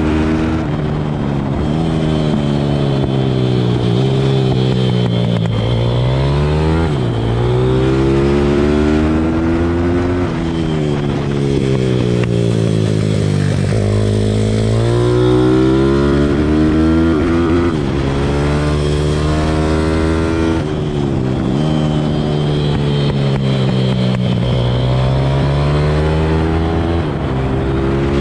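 Pit bike's single-cylinder engine heard from on the bike during a track lap. Its pitch repeatedly drops as the throttle is rolled off into corners and climbs again as it accelerates out.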